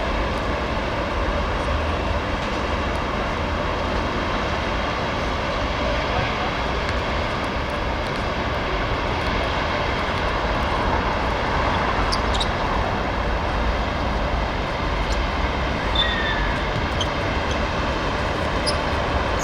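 Steady outdoor background rumble with a strong low drone and an even hiss, with a few faint clicks.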